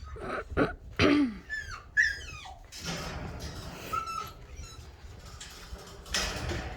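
Excited dogs whining and yelping in short falling cries during the first few seconds, with a brief whine a little later, over a noisy scuffling haze.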